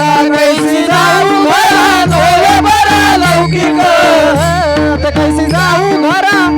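Devotional kirtan music: a singer's drawn-out, wavering melody over a steady, even percussion beat.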